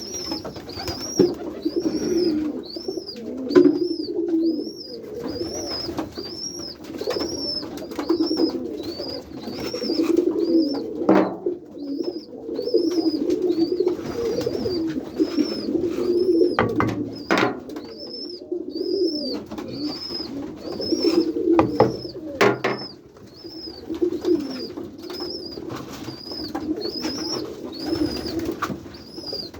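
Many pigeons cooing together in a loft, with a thin high call repeating steadily about one and a half times a second and scattered sharp clicks and flutters.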